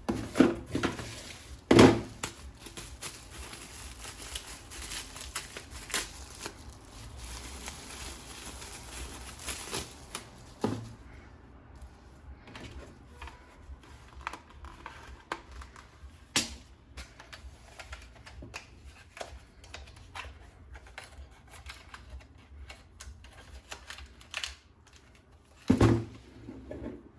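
Irregular clicks, taps and knocks of hard plastic parts being handled, typical of toy gun pieces being unpacked and fitted. Louder thumps come about two seconds in and again near the end.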